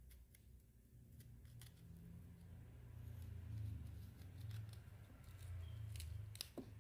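Faint knife work on a pear on a cutting board, as the core and seeds are cleaned out and the fruit is cut: scattered small clicks and taps over a low rumble.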